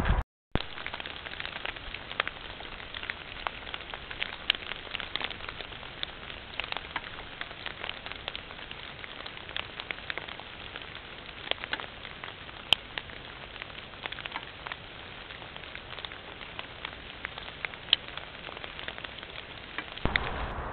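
Steady hiss from a trail camera's microphone, dotted with frequent small crackles and ticks, after a brief dropout just after the start.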